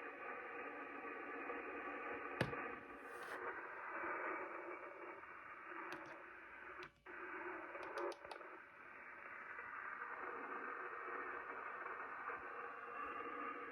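Shortwave receiver audio on 4635 kHz: a steady hiss held below about 3 kHz by the receiver's filter. A sharp click comes about two and a half seconds in, the signal cuts out briefly around seven seconds, and a quick cluster of clicks follows about a second later.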